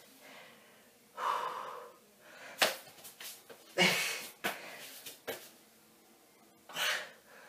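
A person's forceful, effortful breaths during a push-up-position exercise that moves up onto the hands and down onto the elbows, several noisy breaths a second or more apart, with a few short sharp knocks in between.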